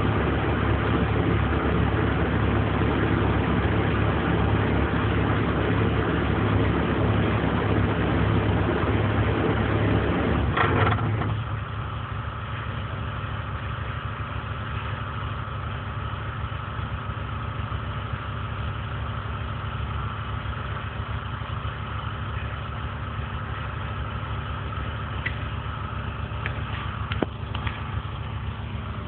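Engine running steadily, then about eleven seconds in it drops back with a short clunk and settles into a quieter, even idle.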